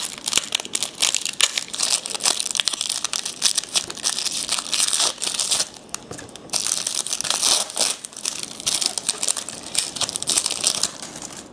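Crinkling and rustling of a trading-card pack wrapper and cards being handled. It goes on almost without a break, with short pauses about six seconds in and again near nine seconds.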